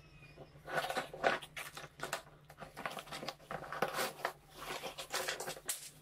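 Clear plastic wrapping crinkling and rustling as a ring light is pulled out of its cardboard box, in irregular crackles starting about a second in.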